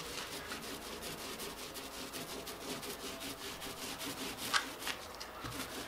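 Small paint roller worked quickly back and forth over resin-soaked fibreglass mat on plywood, a rhythmic wet rubbing of several strokes a second, wetting out the glass mat, with one sharper click a bit past the middle.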